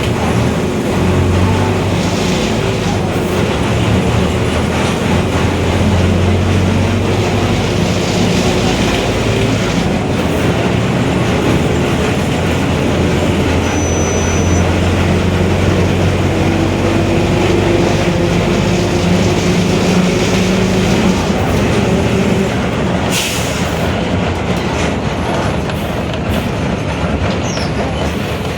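Mercedes-Benz OF-1721 BlueTec 5 bus under way: the diesel engine running steadily with a growling differential, a tone that rises slightly in pitch about halfway through. A single sharp knock comes late on.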